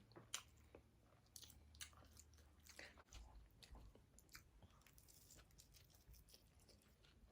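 Faint chewing: a person eating food close to the microphone, with scattered soft mouth clicks and smacks.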